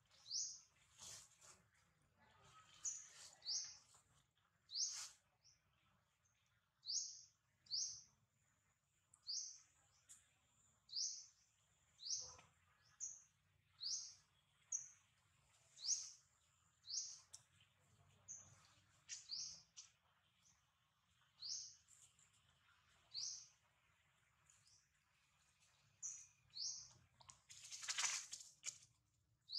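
A bird chirping over and over: short, high, much-alike chirps about once a second, faint.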